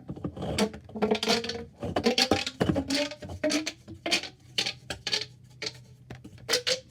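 Plastic pop tubes being pushed back together, a quick run of sharp pops and crinkles, some with a brief squeaky tone.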